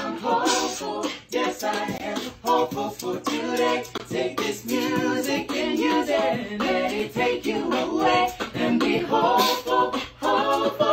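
A woman singing a cappella, without instruments.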